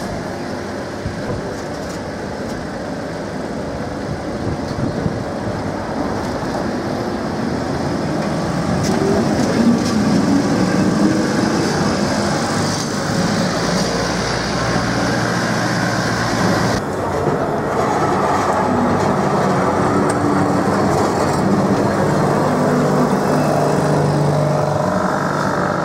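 A Lisbon Remodelado heritage tram running on street rails and passing close by: motor and steel wheels rumbling, growing louder toward the middle, with a higher-pitched screech of wheels on rail while it passes.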